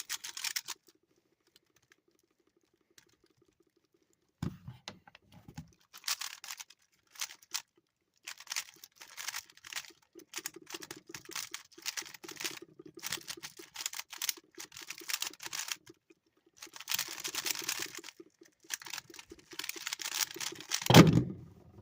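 A standard Rubik's Cube being turned fast during a timed solve: rapid plastic clicking and clacking in bursts with brief pauses. A loud thump comes near the end.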